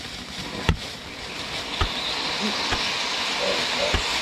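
Ground fountain firework spraying sparks with a steady hiss that builds over the first couple of seconds and then holds, broken by four sharp pops about a second apart.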